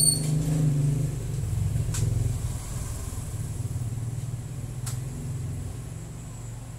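A motor vehicle passing on the street, a low rumble that is loudest about a second in and slowly fades away.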